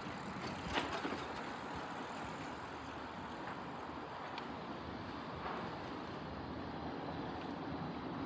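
Steady vehicle noise, with a short click about a second in.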